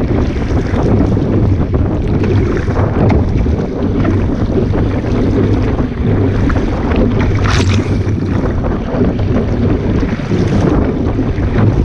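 Wind buffeting the microphone over water rushing and splashing along the hull of a Sunfish sailing dinghy under way.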